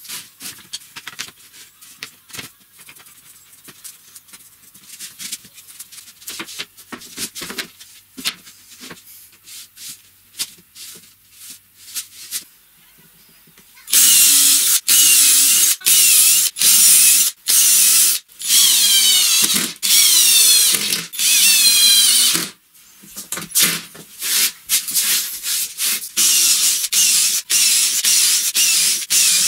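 Light clicks and knocks of parts being handled on a workbench, then, about halfway through, a cordless drill driving screws into plywood in repeated short runs of about a second each, its whine rising and falling with the trigger.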